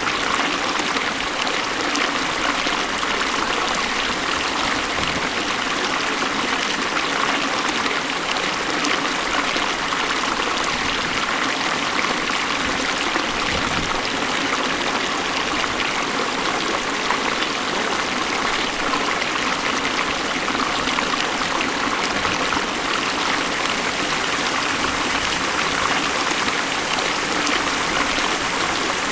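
Beas River water rushing steadily, an even, unbroken sound of a fast-flowing river.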